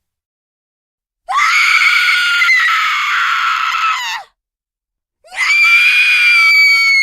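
Two long, high-pitched horror-film screams by a young woman, the first from about a second in to about four seconds, the second starting about five seconds in, with dead silence before and between. Each scream is held at a steady pitch and drops off sharply at the end.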